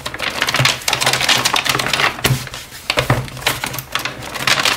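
Stiff, crinkly paper pages of a rain-soaked and dried sketchbook being flipped by hand: a dense, irregular run of crackles and rustles.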